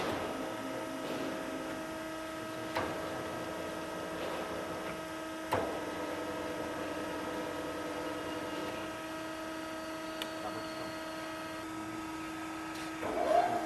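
Surface grinder running with a steady electric motor hum, broken by a couple of short knocks and a louder clatter near the end. One of the hum's tones drops out a little before the clatter.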